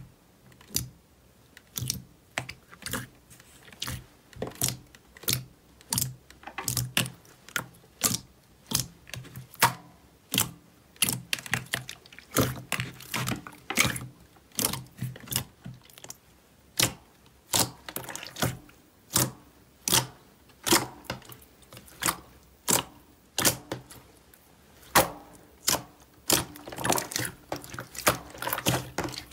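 Soft glossy slime being pressed and folded by hand, giving a series of sharp pops and clicks as trapped air escapes, about one or two a second and coming faster near the end.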